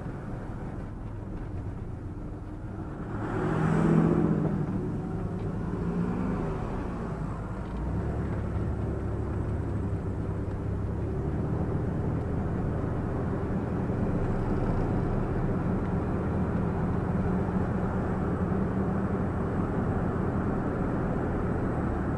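Van driving on the road, heard from inside the cab: steady engine and tyre noise. A louder swell with a falling pitch comes about four seconds in, like a vehicle going past, and the low rumble steps up about eight seconds in.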